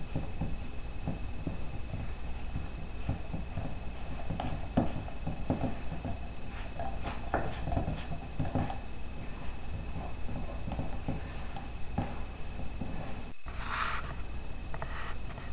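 Wooden spoon stirring a stiff flour dough in a stainless steel mixing bowl: irregular scraping and soft knocks of the spoon against the bowl.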